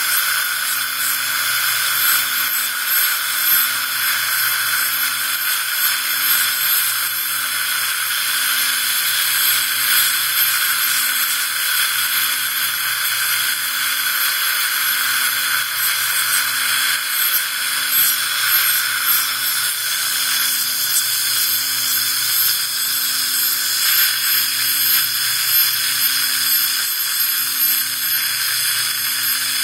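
Ultrasonic scaler running against the lower front teeth with its water spray, together with saliva ejector suction: a steady hiss, with a faint low hum pulsing about once a second underneath, as supragingival calculus is scaled off.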